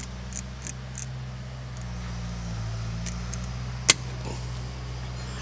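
Small metal clicks as a battery cable and vise grips are worked on a truck battery terminal, with one sharp click about four seconds in, over a steady low engine hum.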